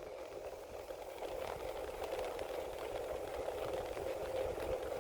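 Bicycle in motion: a steady rolling hum with a faint rattle and light ticking.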